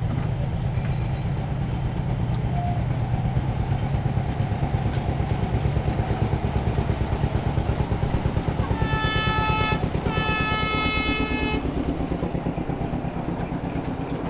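Small narrow-gauge internal-combustion locomotive engine running with a strong rhythmic beat. Its horn sounds twice about nine seconds in, two blasts of roughly a second each.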